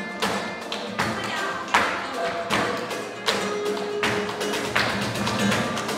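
Live flamenco alegrías: Spanish guitar with palmas (hand clapping) and cajón, with sharp percussive accents landing about every three-quarters of a second.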